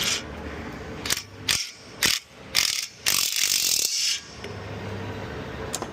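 Mechanical clicking or ratcheting in a string of short sharp bursts, then one longer burst of about a second, over a low steady hum.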